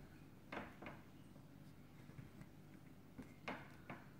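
Near silence with a few faint taps and clicks of small objects handled on a tabletop, a cluster about half a second in and another around three and a half seconds in.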